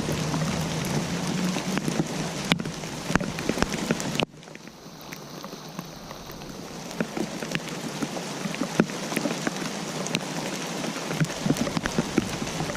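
Rain falling steadily, with many separate drops ticking sharply on a surface. About four seconds in, the sound falls away suddenly, then swells back over the next few seconds.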